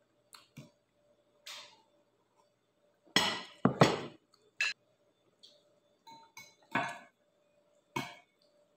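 Clicks, knocks and clatters of a plastic food container and dishes being handled at the table. The loudest is a pair of harsh clatters about three to four seconds in, with smaller knocks before and after.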